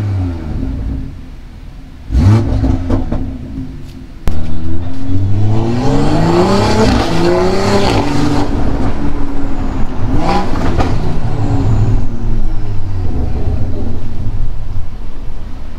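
BMW M340i's turbocharged 3.0-litre inline-six breathing through an Active Autowerke aftermarket exhaust in Sport mode, heard from inside the cabin. The engine note falls at first, then from about four seconds in climbs hard under acceleration, drops at an upshift and climbs again before settling into steadier running.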